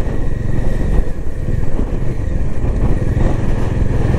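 Motorcycle engine running steadily while the bike travels at road speed, with heavy wind buffeting the microphone in a strong crosswind.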